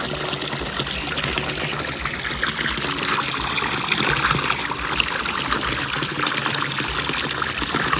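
Water pouring steadily from a PVC pipe outlet into a concrete fish tank that is being filled, the falling stream splashing and foaming on the water surface.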